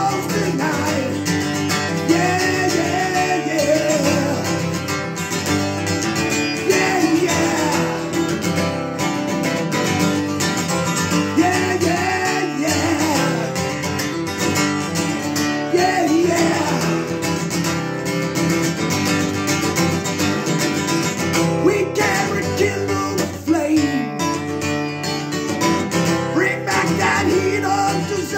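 Country-style song led by a strummed acoustic guitar, playing steadily throughout.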